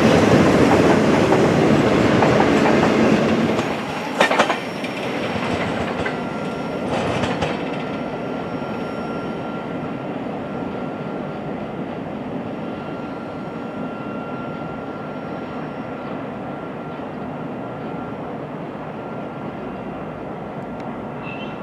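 Work-train cars rolling past on steel rails, the wheels clacking over joints and switches, with two sharp clicks about 4 and 7 seconds in. The rumble is loud at first, then fades as the end of the train draws away, while a faint steady wheel squeal holds from the curving track.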